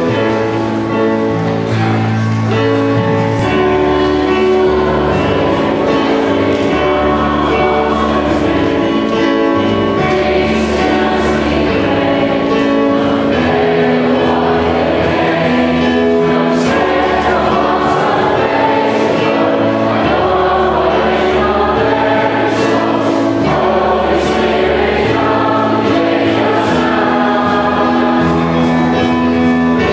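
A large crowd of school students singing a hymn together, with instrumental accompaniment.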